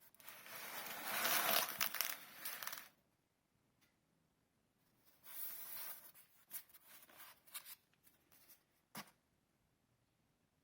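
Shipping packaging being torn open and crinkled by hand: a long tearing rustle for about three seconds, a shorter one a few seconds later, then scattered crinkles and clicks and a single sharp knock near the end.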